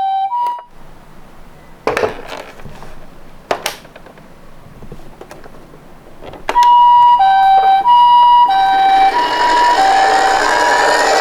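Toy ambulance's electronic two-tone siren, a high and a low note alternating about twice a second, Japanese ambulance style. It cuts off about half a second in and starts again after a quiet gap holding two clicks, with a rising hiss building under it near the end.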